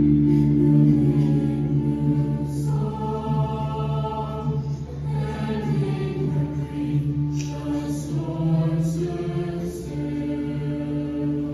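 A stage musical cast singing together in chorus with instrumental accompaniment, the voices holding long notes. It is picked up from far back in a large auditorium.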